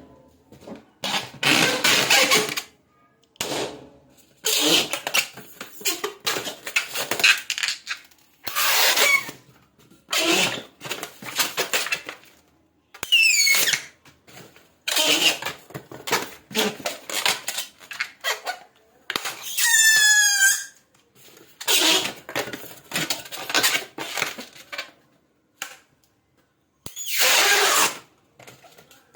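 Rubber balloons being handled and inflated: a string of rushing, rubbing bursts about a second or two long, with a short falling squeal about 13 seconds in. About 20 seconds in a balloon's stretched neck gives a wavering high squeal as air escapes.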